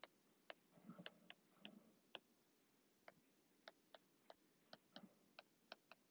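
Faint, irregular clicks of a stylus tip tapping on a tablet screen during handwriting, roughly two a second, with a soft rustle around a second in.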